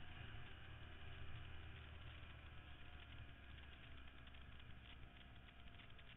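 Faint motorcycle engine running with a low wind rumble, as picked up by a camera mounted on the moving bike, with a scatter of faint clicks in the second half.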